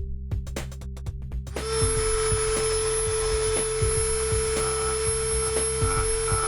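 Background music with a beat, then about a second and a half in a Dremel rotary tool with a sanding drum starts up and runs with a steady high-pitched whine, sanding down the face of an airsoft gearbox tappet plate.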